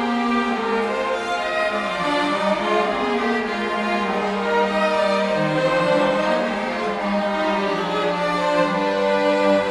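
Violin ensemble playing the slow instrumental introduction to a hymn: sustained, layered bowed notes over a slowly moving lower line.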